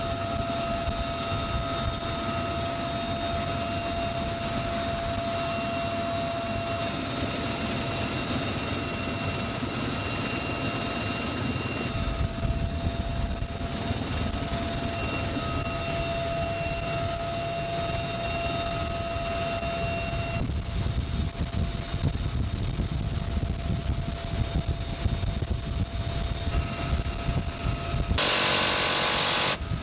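Helicopter cabin noise with the door open: a steady high whine over rotor and wind rumble. Near the end a GAU-17 minigun fires one short burst of just over a second, a continuous loud buzz.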